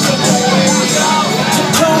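A hip-hop song playing loudly, with a melodic sung vocal line over the backing track.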